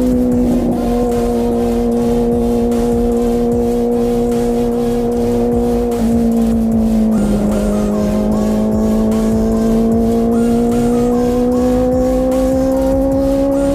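Honda CBR650R inline-four running through an IXIL full-system exhaust with the dB-killer removed. The exhaust note sags slowly while cruising, drops in pitch at a gear change about six to seven seconds in, then rises steadily as the bike accelerates.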